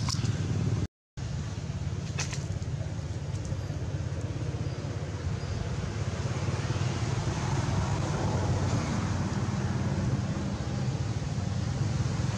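Steady low outdoor background rumble with no animal calls. It drops to silence for a moment at a cut about a second in.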